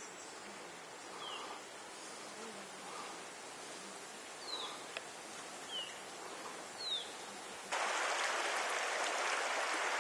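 Open riverside ambience with a few short, falling bird chirps and faint distant voices. About three-quarters of the way through, a loud, steady hiss of rushing water cuts in suddenly.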